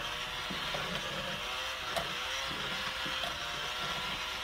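Pampered Chef Flex+ cordless electric hand mixer running steadily, its beaters shredding cooked chicken breast in a bowl, with the motor's hum wavering slightly as the beaters grab the meat.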